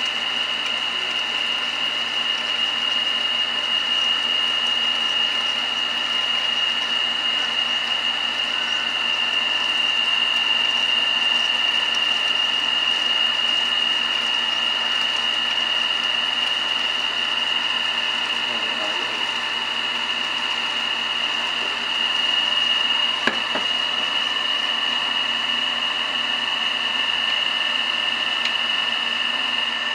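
New electric water pump being primed: water poured into its port, over a steady high-pitched whine throughout, with a single sharp click about 23 seconds in.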